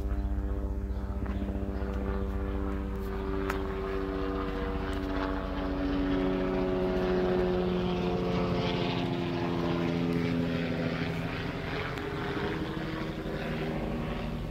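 Propeller airplane passing overhead: a steady engine drone whose pitch slowly drops as it goes by.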